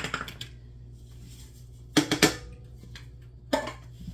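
Sharp knocks and clatters of a powdered lemonade-mix canister against a large aluminum stockpot as the powder is dumped in: one right at the start, a quick cluster about two seconds in, and another about three and a half seconds in. A range-hood exhaust fan hums steadily underneath.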